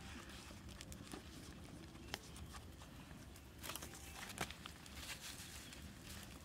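Faint rustling and crinkling of a lotus leaf being folded by hand, then crunching and shuffling footsteps on dry leaf litter, with scattered small clicks and snaps, busiest about four seconds in.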